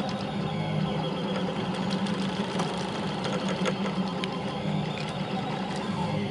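Delta 3D printer's stepper motors whirring steadily as the effector moves over the print, with scattered light ticks.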